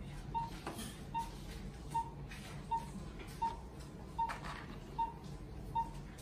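Patient monitor's pulse oximeter beeping once per heartbeat, a short high beep repeating evenly about every three-quarters of a second. Light rustling and clicks of the plastic kit tray and packaging being handled.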